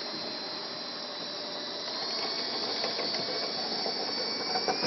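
Electric drill running steadily, spinning a dryer vent cleaning brush on rods inside the vent duct, with a motor whine over a hiss. The whine rises a little in pitch about two seconds in, and a few clicks come near the end.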